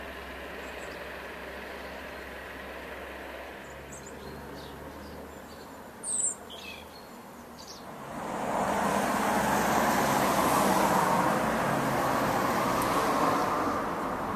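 Outdoor ambience of road traffic: a faint low steady hum for the first eight seconds, then a louder, even rush of traffic noise for the rest. A brief sharp sound stands out about six seconds in.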